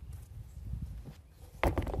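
Small lawn-mower tire being rolled and turned by hand on a wooden tabletop to spread the sealant inside it: a low rumble, then a quick cluster of knocks near the end as the tire is shifted on the boards.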